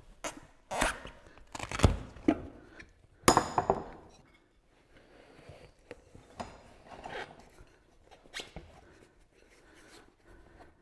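Tyre levers knocking and clinking against a wheel rim as a tyre bead is levered off to reach the inner tube, with a few sharp knocks in the first four seconds, the one about three seconds in ringing on. Afterwards quieter rubbing and handling of the tyre and tube.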